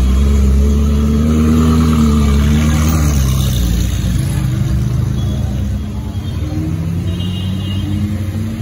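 Ferrari 458 Italia's naturally aspirated V8, fitted with a Novitec exhaust, pulling away at low speed; its note rises slightly and then falls away about three and a half seconds in. Quieter engine noise from passing traffic, including a motorcycle, follows.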